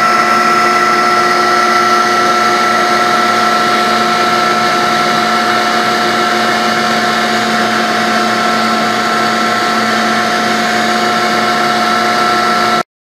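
Maxicam 1325 CNC router's spindle running steadily, a constant high whine over a hiss. It cuts off suddenly near the end.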